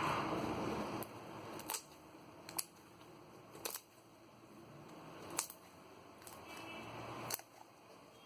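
Slime being handled, with a rustling start and then about five sharp clicking pops spread over several seconds.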